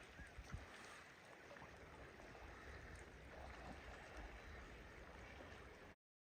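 Near silence: faint outdoor background noise with a low rumble, which cuts off to dead silence about six seconds in.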